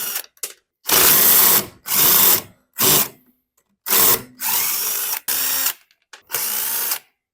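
Power driver spinning out small hex-head screws from a lawn mower's engine parts in several short runs of under a second each, with brief pauses between.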